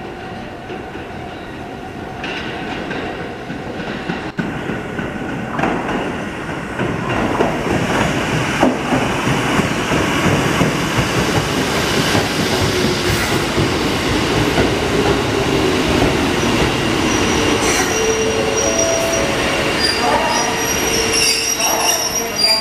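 Kotoden (Takamatsu-Kotohira Electric Railroad) electric train pulling into the platform, its wheels rumbling and clattering over the rails and growing louder. From about three quarters of the way through, high steady wheel squeals come in as it slows to a stop.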